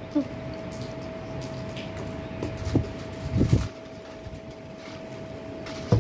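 Steady background hum with one constant tone, like a running fan or other machine. A few soft thuds come about halfway through, and there is a sharp click near the end.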